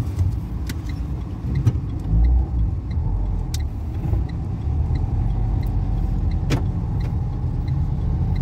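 Car being driven, its engine and tyres giving a steady low rumble, with a faint regular ticking about twice a second and a few sharp clicks.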